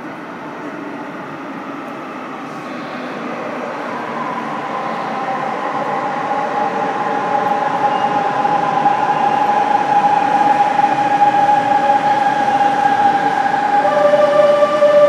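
Metro Bilbao UT 500 electric train running in from the tunnel and slowing along the platform: a rumble that grows steadily louder, with an electric whine that comes in about a third of the way through and slowly falls in pitch. Near the end a different, higher set of steady whining tones takes over as the train brakes.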